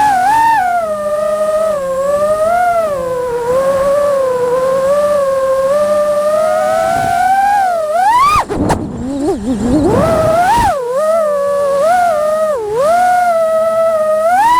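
Brushless motors and propellers of a GEPRC Vapor X5 five-inch FPV quadcopter whining as the throttle changes. The pitch swoops up and down, climbs sharply about halfway through, drops away briefly, then swings up and down again.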